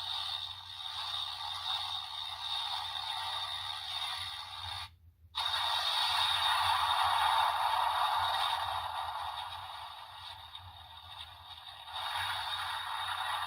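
Electronic sound effects from a Kamen Rider Geats IX DX role-play buckle toy, playing through its small built-in speaker. They sound thin and tinny with no bass, and are mostly noisy, whooshing effects. The sound cuts out briefly about five seconds in, comes back louder, fades, and rises again near the end.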